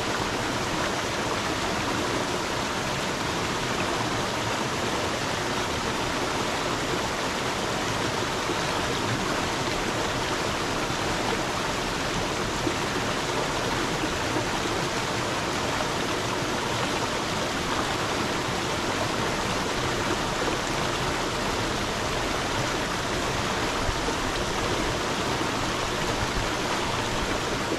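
Water stream flowing: a steady, even rush of running water.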